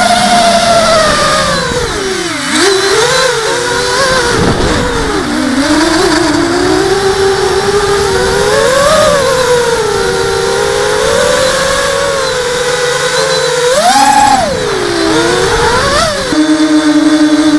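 A ZMR hexacopter's brushless motors and propellers whining as it flies, the pitch rising and falling with the throttle, with a sharp dip a couple of seconds in and a quick surge near the end. Near the end it switches abruptly to a steadier, lower whine.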